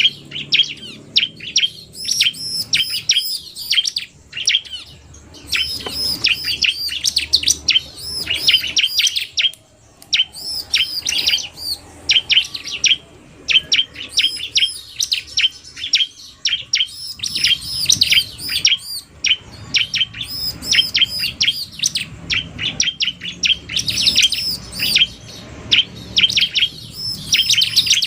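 Bar-winged prinias (ciblek) calling: a male's rapid 'narung' chatter mixed with a female's fast calls. High, quick chirps come in busy phrases of a second or two, with short breaks between them.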